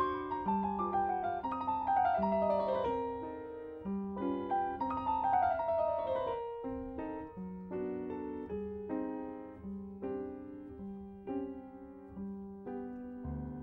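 Solo piano music: quick downward runs of notes over a repeated low note, then a quieter passage of steady repeated chords.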